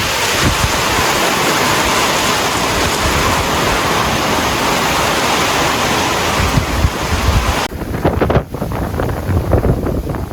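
Strong wind rushing and buffeting a phone's built-in microphone. A loud, full hiss gives way about eight seconds in to a lower, gusty rumble.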